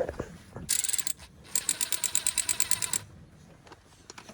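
A brief metallic clatter, then a socket ratchet wrench clicking rapidly, about nine clicks a second for a second and a half, as the socket works a bolt loose.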